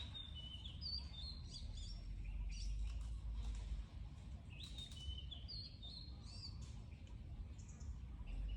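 Songbird chirping in two short, quick, high phrases, one at the start and one about halfway through, over a low steady rumble.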